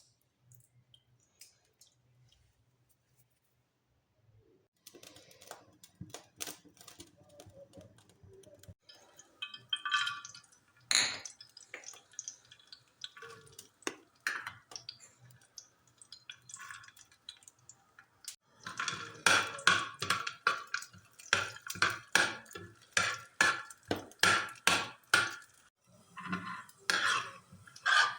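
A metal spoon clattering against a cooking pot. It starts with scattered knocks, then about two-thirds of the way in comes a steady run of sharp clinks, about two a second.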